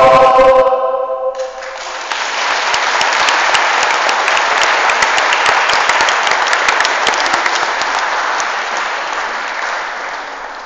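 A gospel choir's final held chord breaks off about half a second in, then the audience applauds, gradually fading toward the end.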